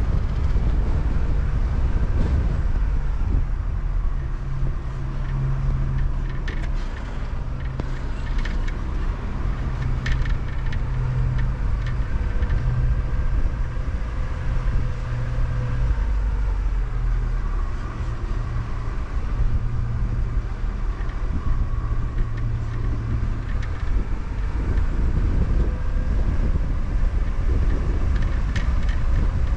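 Car driving slowly, heard from on board: a steady low engine hum over a rumble of road and wind noise.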